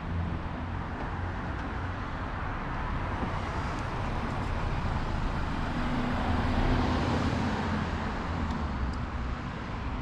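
Road traffic on a town street: a steady engine and tyre rumble as a vehicle passes, loudest about six to seven seconds in.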